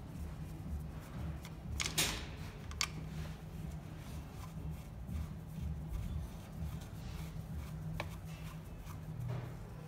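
A compression tester's hose adapter being handled and threaded into a spark plug hole, giving a few light metallic clicks and scrapes: two about two seconds in and another near the end. A steady low hum runs underneath.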